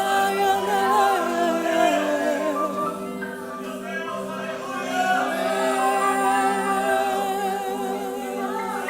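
Christian worship music: voices singing wordless, wavering melodic lines over sustained held chords.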